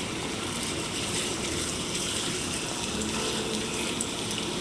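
Split hot dogs sizzling steadily in a non-stick frying pan with a dash of olive oil.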